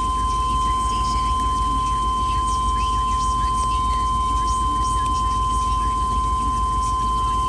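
A steady, high-pitched electronic tone held without a break, over a low steady rumble.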